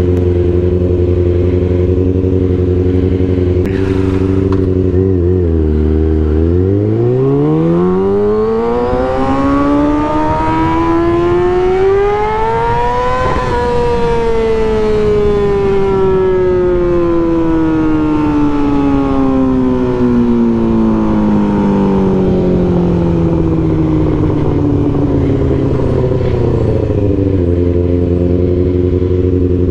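Kawasaki ZX6R's inline-four through an M4 GP exhaust, running at a steady low note for about five seconds, then pulling away with one long smooth rise in engine pitch to about halfway through. It then winds down slowly as the bike decelerates and settles back to a steady low note near the end, with wind noise throughout.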